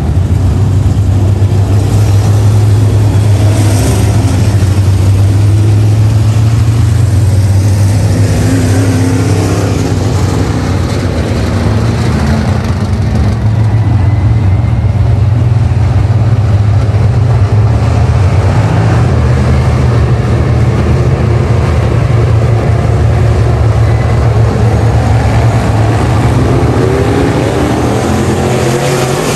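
Engines of a pack of dirt-track modified race cars running hard around the oval in a heat race. They make a steady, loud drone whose pitch shifts a little as cars pass.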